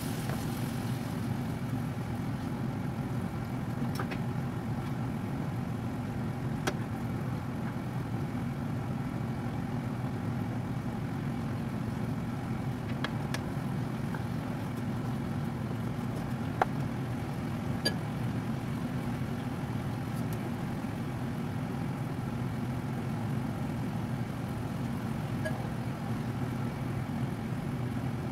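Steady low hum of a kitchen range-hood extractor fan running, with a few faint pops and ticks from diced beef frying in a pan.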